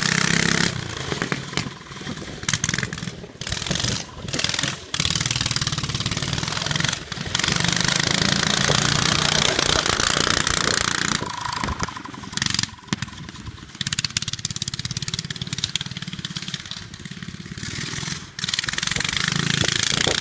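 Murray buggy's 7 hp engine running with the exhaust removed (open pipe) while the buggy is driven, the throttle opening and closing: loud stretches of engine noise broken by several drops in level.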